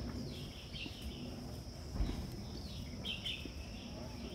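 Woodland ambience: a steady, high-pitched insect drone, with short bird chirps about half a second in and again about three seconds in, and a couple of low thumps.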